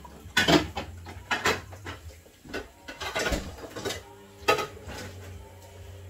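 Clinks and knocks of cans and containers being handled at an open refrigerator, and the fridge door swinging shut. The sharpest knock comes about four and a half seconds in, and a faint steady hum follows.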